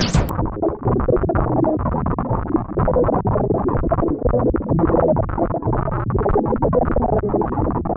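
Effects-laden electronic remix of nursery-rhyme music with synthesizer tones. Just after it begins, the treble cuts off abruptly and the music carries on muffled.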